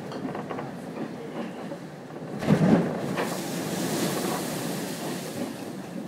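Wind and rough sea rushing past a sailing yacht's deck in a near-gale. About two and a half seconds in, a wave hits with a loud splash, and spray hisses across the deck for a couple of seconds.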